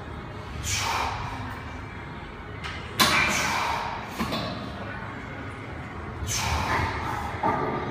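A lifter breathing hard through a set of barbell front squats, with a forceful exhale about every one to two and a half seconds as he works through the reps. A sharp thud about three seconds in is the loudest sound.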